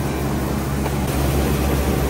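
Electric rice milling machine running steadily: a low motor hum under an even rushing noise, a little louder from about a second in.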